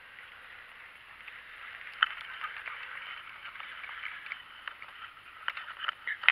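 Handling noise from a spinning rod and reel in a paddleboat: a steady hiss with scattered small clicks and knocks, the sharpest about two seconds in and another at the very end.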